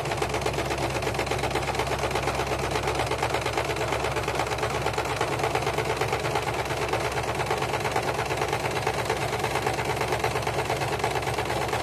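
Household electric sewing machine running at a steady speed, stitching a long seam through fleece blankets with a rapid, even needle rhythm.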